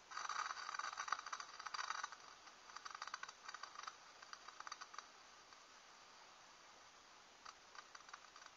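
Lid of a metal pot rattling in quick bursts of light clicks as the water inside nears the boil on a soda-can alcohol stove, for about five seconds, then a few faint clicks near the end.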